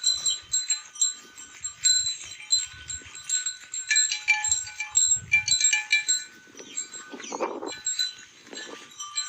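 Neck bells on grazing buffaloes clinking and ringing irregularly, many bells at different pitches. A short animal call sounds about seven seconds in.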